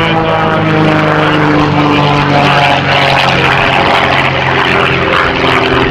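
Aerobatic biplane's piston engine and propeller at high power, its pitch falling over the first few seconds as it passes by, then steady at a lower pitch.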